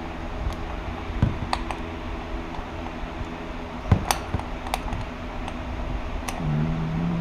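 Scattered light clicks and clinks as a new oil filter is worked by hand onto a motorcycle engine, with the sharpest knock about four seconds in. A steady low hum runs underneath, and a short low tone sounds near the end.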